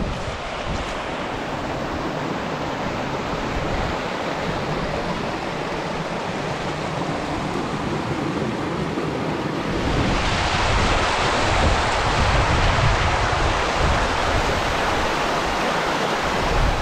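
Small mountain-spring stream rushing over rocks, a steady noise of running water that grows louder about ten seconds in. Wind rumbles on the microphone underneath.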